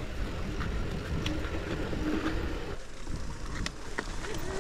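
Mountain bike rolling downhill over a rocky trail: wind rumbling on the microphone, tyres crunching over loose stones, and scattered clicks and rattles from the bike, with a faint whine coming and going.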